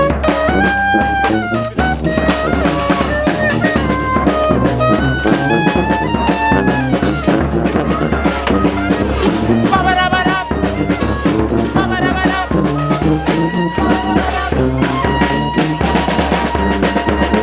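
Brass street band playing a tune: horns carry a moving melody over bass drum and snare drum.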